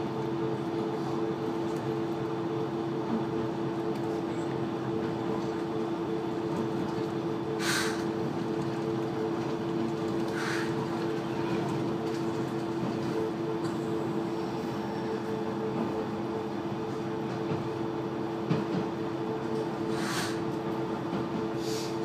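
KiHa 120 diesel railcar heard from inside while under way: a steady drone of engine and running gear with two held tones over rail rumble. A few short hisses come in at about eight, ten and twenty seconds in.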